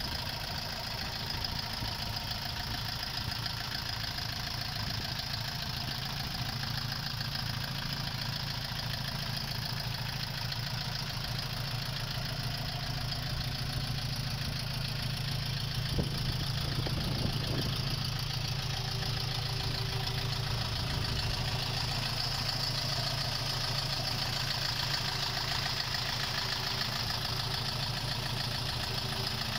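SD404 compact tractor's three-cylinder diesel engine idling steadily, with a single brief click about halfway through.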